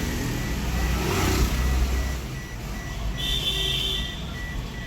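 Motor vehicle running with a low rumble, with a faint, rapid, steady beeping throughout.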